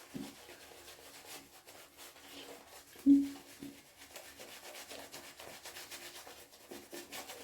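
Badger shaving brush swirling and scrubbing soap lather, a soft irregular scratchy rubbing. The lather is still dry and being loaded with more water. About three seconds in there is one short, low hum-like sound, the loudest moment.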